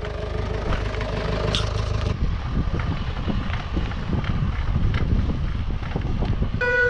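Ice cream van's engine running steadily in a gap between chime tunes, giving way after about two seconds to a gusty rumble of wind on the microphone. The chime tune starts up again right at the end.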